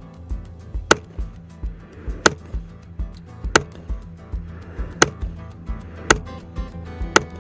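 Six sharp AR-15 rifle shots, about a second to a second and a half apart, over background music with a steady beat.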